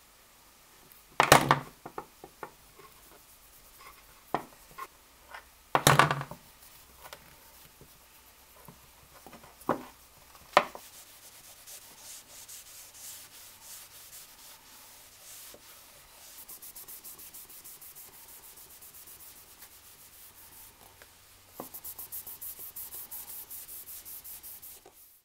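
A few sharp knocks and clicks as the polish tube and screwdriver are handled on the workbench. Then a cloth rubbing metal polish along a steel screwdriver shaft, turning to rapid, even back-and-forth strokes about two-thirds of the way in.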